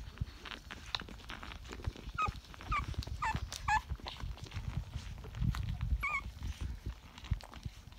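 Rottweiler puppies nursing, with soft suckling and shuffling against the mother and about five short, high-pitched squeaks and whimpers, four in quick succession between about two and four seconds in and one more about six seconds in.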